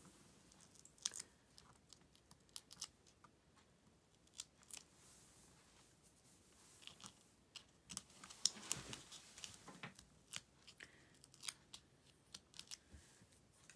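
Quiet handling of a cardstock panel: scattered light clicks and ticks of paper being moved and pressed, with a brief rustle about eight and a half seconds in.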